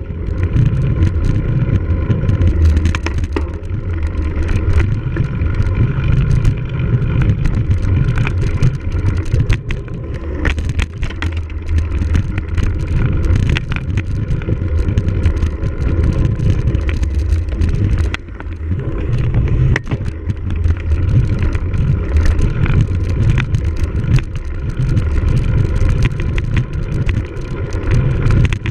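Heavy wind rumble on the microphone of a camera mounted on a cyclocross bike being raced, with the bike rattling and clicking over rough ground.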